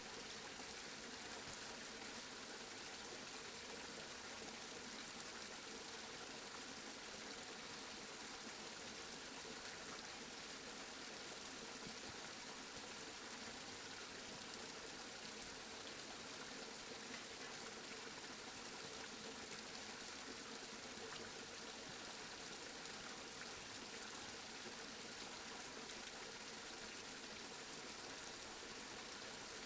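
Steady rainfall, an even hiss of rain with no thunder and no let-up.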